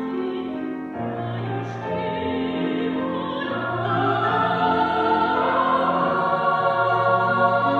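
Choir singing held chords, growing louder about four seconds in.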